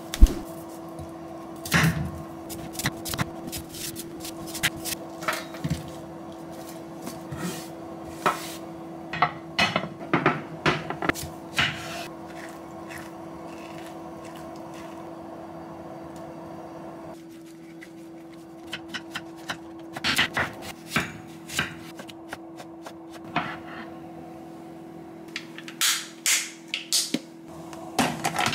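Kitchen knife cutting a netted melon on a wooden cutting board: many sharp knocks and taps of blade and rind against the board, with a quieter stretch in the middle while a metal measuring spoon scoops out the seeds. A steady hum runs underneath.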